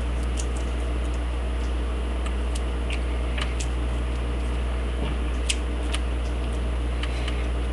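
A steady low hum, with faint small clicks here and there from a homemade lock pick and tension wrench working inside a lock.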